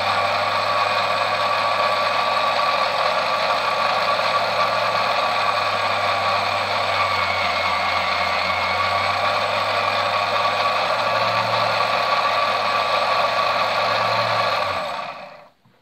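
Small round-belt-driven bench lathe running steadily with a constant hum and whine as it faces a model railway wheel held in a step chuck, taking 0.2 mm off the face. The motor stops near the end.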